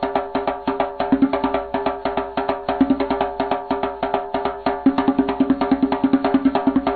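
Background music with a quick, clicking wood-block-like beat over held low notes.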